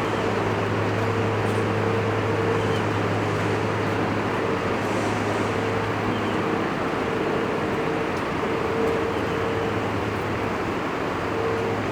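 Steady street noise: a continuous rush with a constant low hum, plus a higher tone that comes and goes, typical of traffic and running engines.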